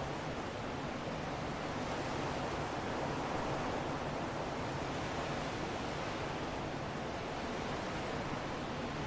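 Wind blowing: a steady, even rushing that swells slightly a few seconds in.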